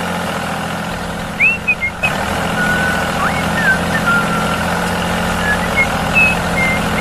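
Mini DIY toy tractor's motor running steadily as it pulls a tined cultivator through sand, with short high chirps of small birds over it now and then.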